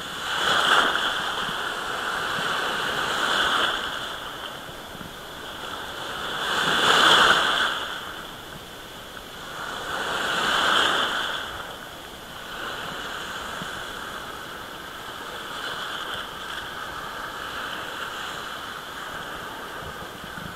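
Small sea waves washing in, the surf noise swelling every three to four seconds, loudest about seven seconds in, then settling into a steadier wash.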